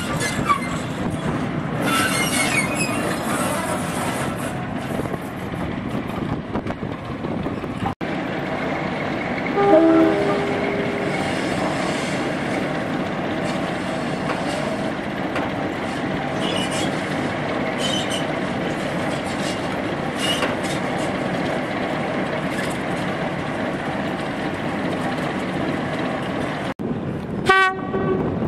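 Diesel locomotives running steadily past on the line, with wheel squeal now and then. A locomotive horn sounds about ten seconds in, and again briefly near the end.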